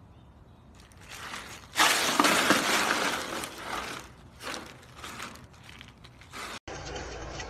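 Ice cubes clattering and crunching in a plastic tub as a husky wriggles on its back in them. It is loudest about two seconds in, then comes in shorter bursts.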